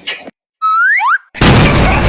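Comedy meme sound effect: a whistle-like tone rising in pitch, then a second, quicker rising glide, then a sudden loud noisy blast like an explosion that carries on.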